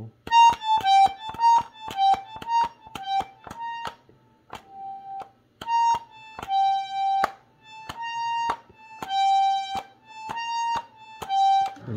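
Diatonic button accordion playing an ornamental run (adorno) on the treble buttons alone, without bass. Quick notes alternate between two neighbouring pitches for about four seconds, then come as longer held notes with short gaps. Each note starts with a sharp click of the button.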